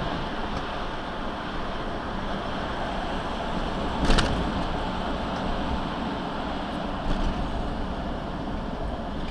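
Steady road and engine noise inside a moving car, with one sharp knock about four seconds in and a fainter one near the end.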